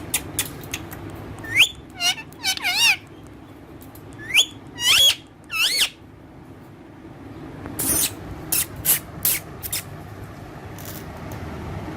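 Green parrot giving short, shrill, warbling squawks with a wobbling pitch, in two bursts. Sharp clicks come at the start and again in a run later on.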